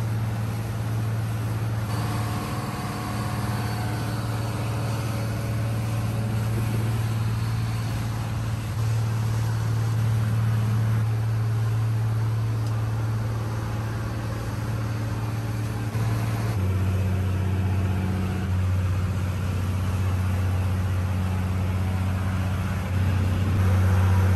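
Yanmar Arashio DE31F's inboard diesel engine running steadily under way, a low drone with water rushing past the hull. About two-thirds of the way through, the low note shifts a little lower.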